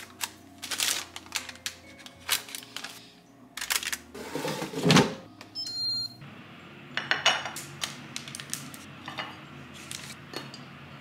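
Paper liner crinkling and clicking as it is pressed into an air fryer basket, then a loud knock about four seconds in as the basket goes into the air fryer. Just before six seconds a short electronic beep sounds from the air fryer's control panel, followed by a low steady hum and a few more light handling clicks.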